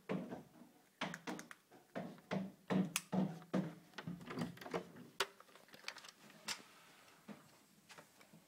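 Irregular knocks and clicks of a handheld camera being carried and handled while someone walks: footsteps and handling noise. They are denser in the first few seconds and thin out later.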